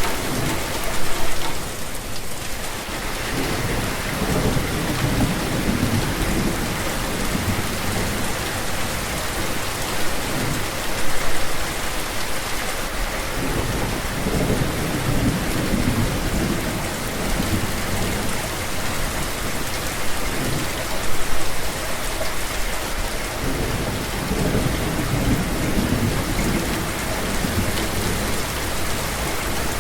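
Steady rain falling, with low rumbles of thunder swelling and fading every several seconds.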